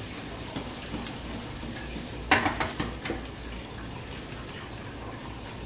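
Popcorn kernels and M&Ms sizzling in a lidded pan on a portable gas burner: a steady hiss with a few sharp pops and knocks, the loudest about two seconds in, as the pan is lifted and set back on the burner.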